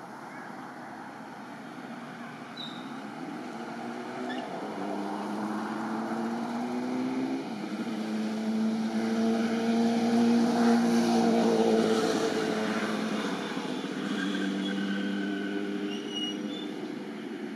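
An engine passing by: a steady hum that grows louder for about ten seconds and then fades.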